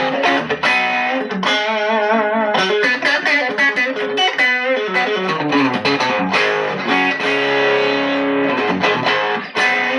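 WestCreek TT-20 Telecaster-style solid-body electric guitar played through a small amp with the gain turned up: a lead line of single notes and chords, with vibrato on held notes about two seconds in.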